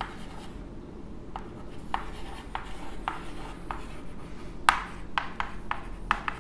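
Chalk writing on a blackboard: a string of short taps and scrapes as digits and symbols are written, the sharpest stroke a bit past the middle, followed by a quick cluster of taps near the end.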